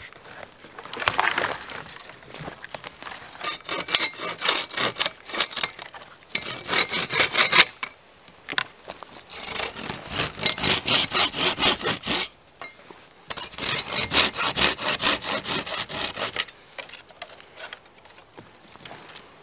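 Hand saw cutting through a wooden branch in quick back-and-forth strokes, about three to four strokes a second. It comes in three bouts with short pauses between them.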